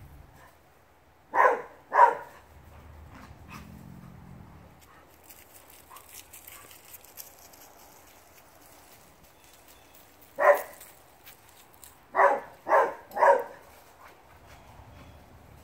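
Dog barking in short single barks: two about a second in, one more partway through, then three in quick succession near the end.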